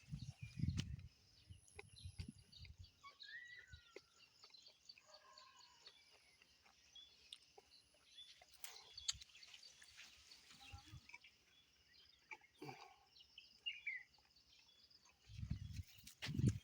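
Faint birds chirping and calling in a quiet rural background, with a few low rumbling thumps at the start and again near the end.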